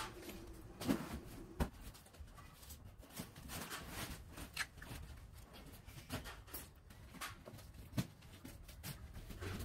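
Light clicks and knocks of plastic ceiling-fan housing parts being handled and fitted together, with a screwdriver on small screws; a few sharper clicks stand out, two in the first two seconds and one near the end.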